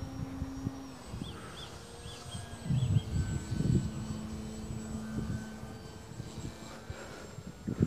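Dynam Tiger Moth RC biplane's electric motor and propeller giving a steady distant whine as it flies, dropping slightly in pitch about a second in. Low gusts of wind buffet the microphone around the middle.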